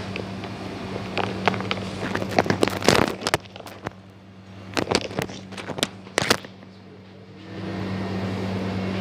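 A clip-on microphone being handled and laid on a steel worktop: three clusters of sharp knocks and rustles. Under them runs a steady low electrical hum, which drops out while the mic is being handled and returns near the end.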